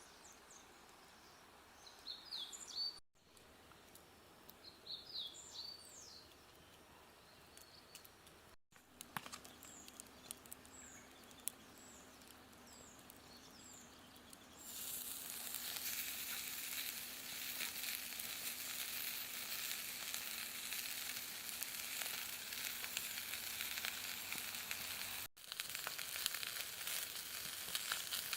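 Birds chirping in short calls over a quiet background, then from about halfway through, food sizzling and crackling in a hot frying pan.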